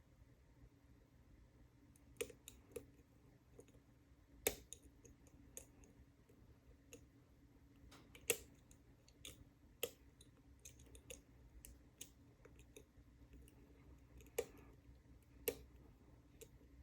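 Lock pick and tension wrench working the pin stack of an all-brass Union padlock: faint, irregular small metallic clicks, with a handful of sharper ones spread through, as pins are lifted and set one at a time.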